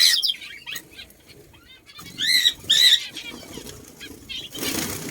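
Birds squawking: harsh, arching calls, with two loud ones a couple of seconds in, among softer chatter. Near the end there is a short burst of rustling noise.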